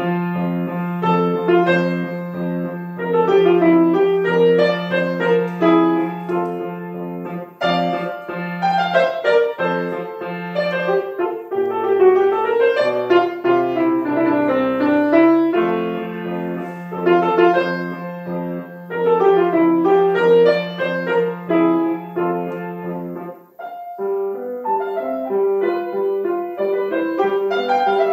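Grand piano played solo in a classical style: quick running figures in the upper notes over a steady, repeated bass line, with brief breaks in the flow about a quarter of the way in and again near the end.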